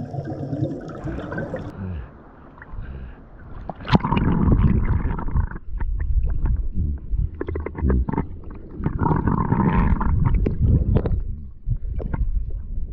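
Muffled water noise heard through a submerged camera; from about four seconds in, dogs paddling at the surface churn the water into a loud low rumble with many sharp clicks.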